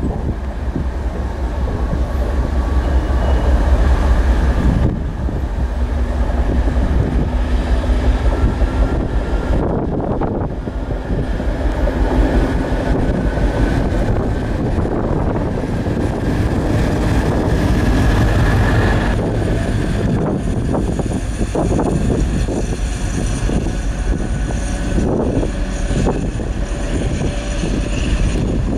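British Rail Class 56 diesel locomotive running light engine, its Ruston Paxman V16 diesel engine running steadily as it passes. In the later part there is a run of sharp knocks from the wheels over rail joints and points.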